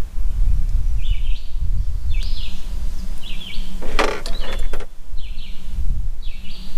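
A bird chirping repeatedly in short notes, over a steady low rumble. A brief clatter of something hard comes about four seconds in.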